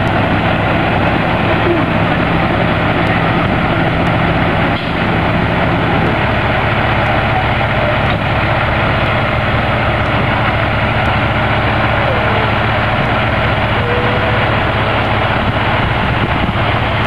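Semi-truck's diesel engine idling steadily, a loud, even low hum.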